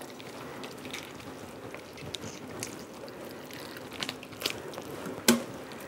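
Faint wet crunching and tearing as the gills and innards are pulled by hand from a whole snapper, with scattered small clicks and one sharp click about five seconds in.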